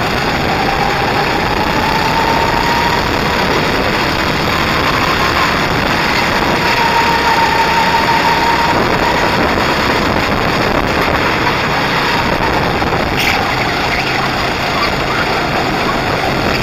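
Go-kart engine heard on board while the kart is moving on the track: a steady drone under a constant rush of noise, its pitch rising and falling gently with the throttle.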